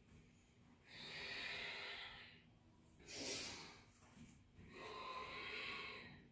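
A person's audible ujjayi breathing during a yoga flow: two long hissing breaths with a short, sharper breath between them.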